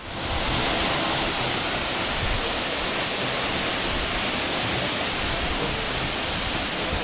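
Waterfall pouring down a rock face into a pool: a steady rush of falling water that comes in sharply at the start and holds level.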